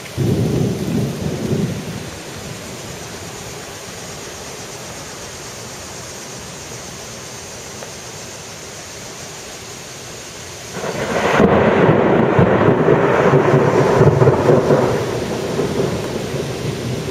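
Thunder over steady rain: a short, loud clap right at the start, then a steady rain hiss, then a long loud peal of thunder from about eleven seconds in that rumbles for several seconds and slowly fades.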